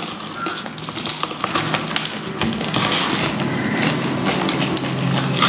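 Crunching and crackling of crispy fried chicken being bitten and chewed, with many scattered sharp crackles.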